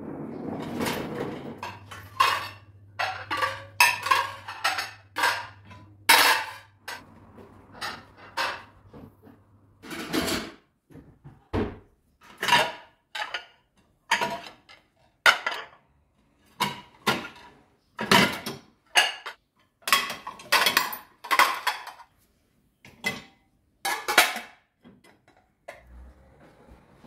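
Dishes and cutlery clinking and clattering in irregular knocks as a dishwasher is unloaded and the items are put away. A faint low hum sits underneath for about the first third.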